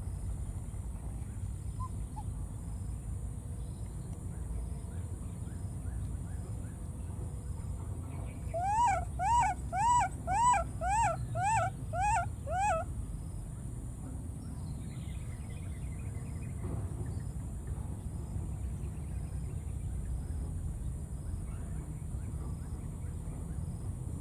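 A baby monkey crying: a run of about eight short, pitched cries that rise and fall, about two a second, starting about eight seconds in, over a steady low rumble.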